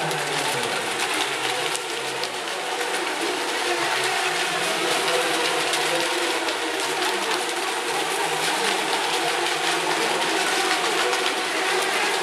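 Several small electric RC racing boats running at once, their motors whining at shifting pitches over churning water, inside a swimming-pool hall.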